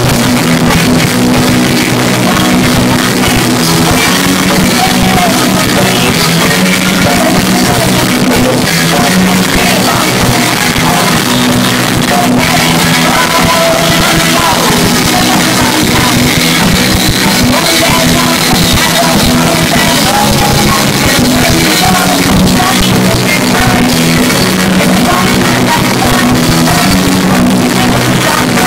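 Live pop-punk band playing loud, with electric guitar and drums, picked up close and hot on a phone's microphone.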